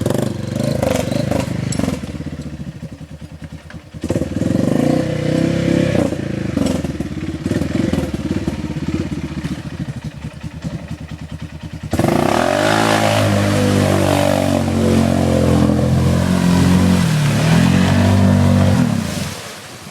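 Arctic Cat Mud Pro 700 ATV engine running under load through a mud hole, revs rising and falling unevenly. About two-thirds of the way in it suddenly revs up hard and holds high, wavering revs, then drops back near the end.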